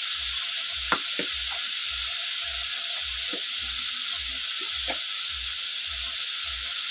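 Sliced beetroot and carrot sizzling steadily as they fry in hot oil in a kadai, with chili powder just added. A low throb about three times a second runs underneath.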